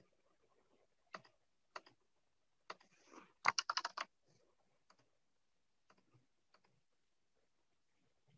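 Quiet computer keyboard typing: a quick burst of keystrokes about three and a half seconds in, with single clicks scattered before and after.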